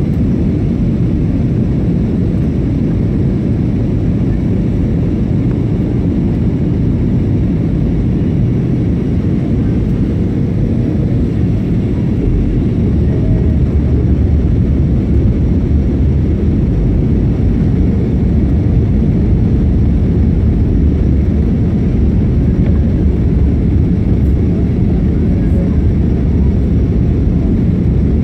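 Steady low roar of an Airbus A320's engines and rushing air, heard inside the passenger cabin during descent. It grows slightly louder about halfway through.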